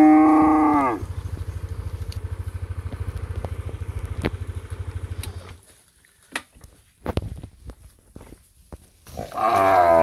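Cattle mooing: a loud moo that falls in pitch and stops about a second in, then a low pulsing rumble for about four seconds, a few faint clicks, and a second moo near the end.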